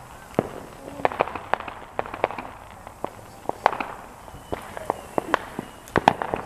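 Firecrackers popping: scattered sharp cracks at irregular intervals, with a quick cluster of louder ones about five to six seconds in.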